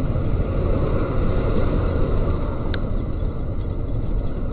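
Steady low rumble of a moving vehicle, engine and road noise with no clear rhythm, broken by a single brief click a little past the middle.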